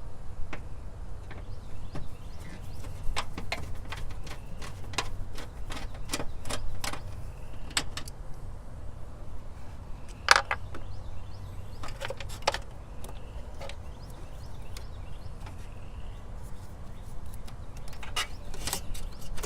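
Irregular small metallic clicks and taps of a battery cable ring terminal and its fastener being handled and fitted by hand, with one louder knock about ten seconds in, over a steady low hum.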